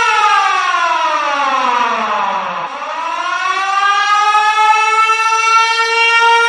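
Siren holding a steady tone, then falling in pitch for about two and a half seconds and rising back up to the same steady tone.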